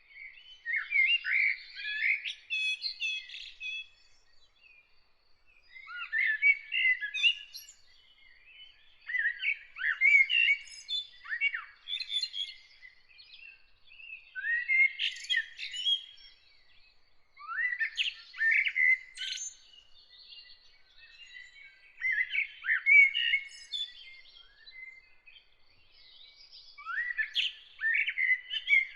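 A songbird singing: phrases of quick chirps and warbled whistles, each two to three seconds long, repeating every three to four seconds with short pauses between.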